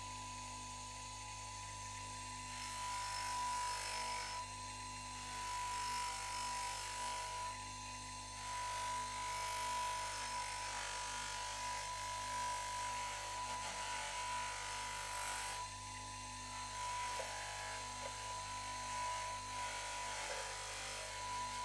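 Bench grinder running with a steady hum and whine while a brass 9mm cartridge case, held in pliers, is pressed against the wheel to grind it down. The grinding noise comes in stretches of a few seconds, with short breaks about four, eight and sixteen seconds in.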